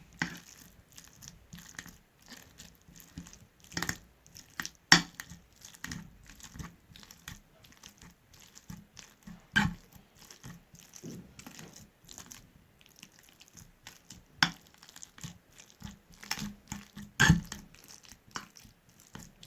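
Steamed dried figs being mashed: soft, irregular squishing with scattered sharp clicks and knocks, a few of them louder, about five, ten, fourteen and seventeen seconds in.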